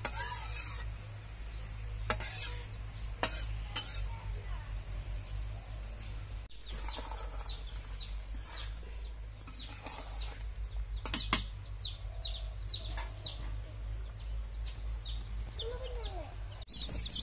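Metal spatula stirring fish curry in a steel wok, scraping and clinking against the pan with a few sharp knocks. From about six seconds in, chicks peep over it in a run of short, high, falling chirps.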